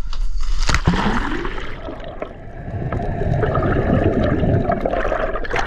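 A sharp splash about a second in, then several seconds of turbulent, churning seawater close to the microphone as a scuba diver enters the sea from a dive boat.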